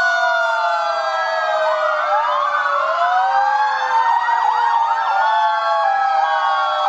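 Many fire-engine sirens wailing at once, their rising and falling tones overlapping, as a column of fire vehicles passes.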